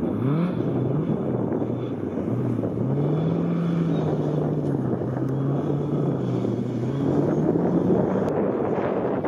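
Ford Escort Mk2 rally cars accelerating hard out of a tight corner one after another. The engine pitch rises and drops again and again as the drivers work the throttle and change gear.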